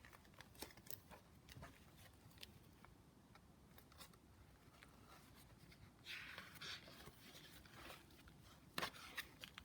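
Near silence in a small room, with faint scattered clicks and a brief soft rustle about six seconds in, then a sharper click near the end.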